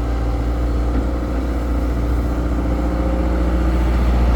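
Heavy diesel engine running steadily, getting slightly louder near the end.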